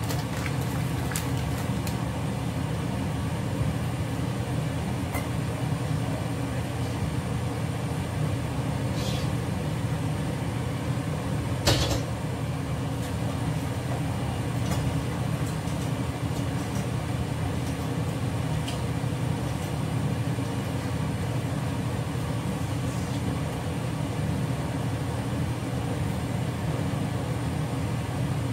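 Steady low rumble of kitchen background noise while a gas burner is lit, with a few light clicks of bowl and utensils and one sharp knock about twelve seconds in.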